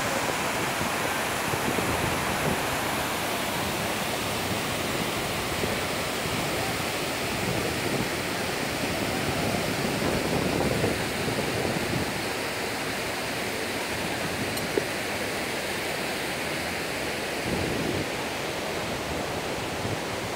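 Water pouring steadily down an artificial waterfall, an even rushing, with one brief click about fifteen seconds in.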